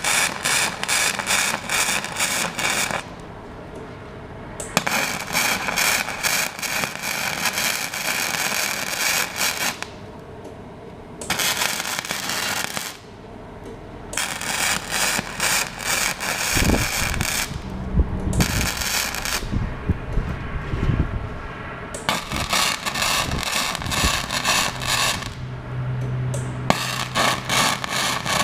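Magmate 150 flux-core MIG welder arc crackling and spitting in a series of short runs of about one to five seconds each, with brief pauses between them, as a patch is stitch-welded in short beads.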